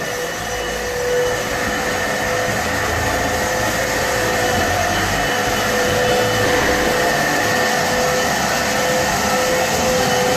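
Canister wet-and-dry vacuum cleaner running steadily, a constant motor whine over the rush of air, growing gradually louder.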